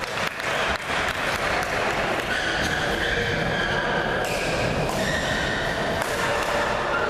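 Badminton racket strikes on a shuttlecock, short sharp knocks during a rally, over the steady chatter of spectators in a large gym hall.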